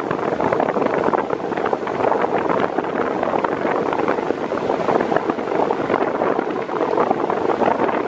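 Ventisol New 50 cm wall fan running at top speed with a Ventisol Turbo 6 blade: a steady rush of moving air with a flickering blade noise, the kind of turboprop-like sound this blade design is known to make.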